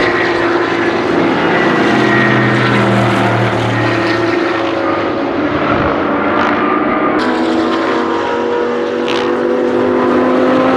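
BMW M6 GT3's twin-turbo V8 racing engine running hard on track, its pitch dipping briefly and then climbing slowly as it accelerates, with other race cars' engines mixed in. A few sharp cracks come about two thirds of the way through.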